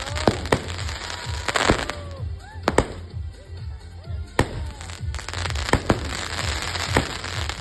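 Dragion Fireworks 'Forge of Elements' going off: about a dozen sharp bangs at irregular intervals, with crackling between them and short whistling tones that glide up and down.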